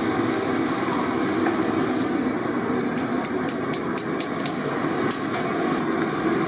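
Gas stove burner burning with a steady rush under a large aluminium pot of boiling fish curry. About three seconds in, a quick run of light clicks comes as a ladle stirs the pot.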